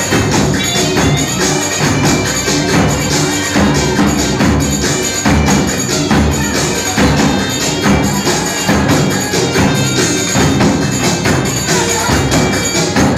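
Turkish davul (large double-headed bass drum) played in a steady rhythm, the heavy beater's deep strokes mixed with crisp clicks from the thin stick, within loud ongoing music.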